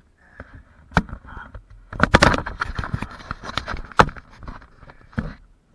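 Hooked muskie thrashing and splashing at the surface beside the boat, in a burst lasting nearly two seconds, with sharp knocks about a second in and again about four seconds in.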